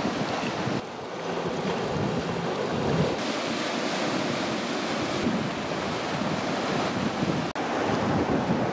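Ocean surf washing against shoreline rocks, with wind buffeting the microphone. The sound drops out for an instant about seven and a half seconds in.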